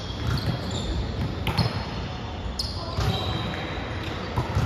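Volleyballs being hit and bouncing on a hardwood gym floor: several sharp thuds, with short high squeaks and players' voices echoing in a large hall.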